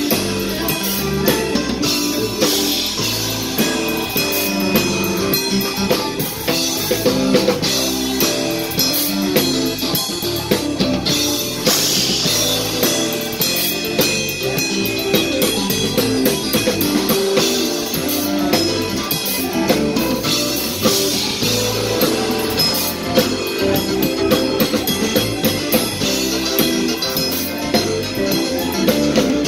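Live gospel band playing an upbeat number: electronic keyboard and electric guitar over a steady drum beat.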